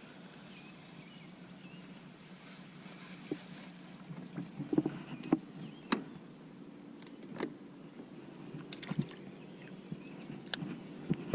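Sharp knocks and clicks of gear against a small fishing boat, scattered through a steady low hum, with a few faint high chirps near the middle.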